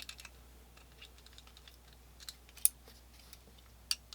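Small irregular clicks and taps of a screwdriver running the trigger guard screws into a Colt black powder revolver's frame, with a sharper click about two and a half seconds in and another near the end.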